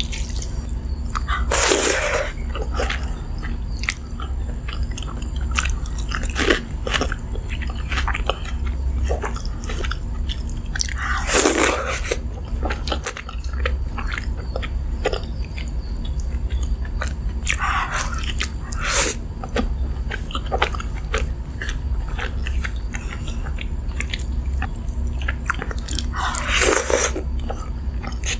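Close-miked eating of crisp fried food: four loud crunching bites spaced several seconds apart, with steady wet chewing and small clicks of the mouth in between, over a low steady hum.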